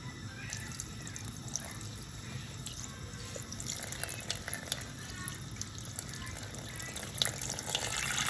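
Water sloshing and dripping, with many small scattered splashes and clicks that grow busier near the end.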